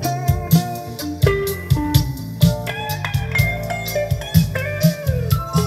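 An old song played back from cassette on a Technics M65 tape deck through loudspeakers: recorded music with a steady drum beat and a melody line.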